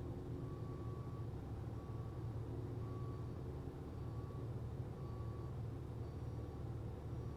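Faint electronic beep repeating about once a second, typical of a vehicle's reversing alarm, over a steady low engine-like rumble.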